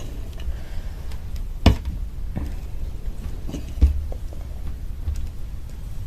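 Sounds of eating a crunchy homemade samosa: a few sharp clicks and knocks, the strongest near two seconds and four seconds in, over a steady low rumble.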